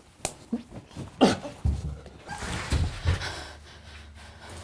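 A boy crying, sobbing in short, uneven gasps and sniffs.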